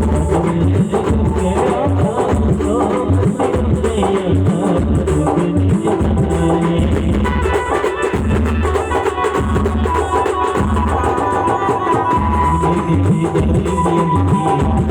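Star band music: a heavy, steady drum beat under a melody line, with a long note held from about ten seconds in.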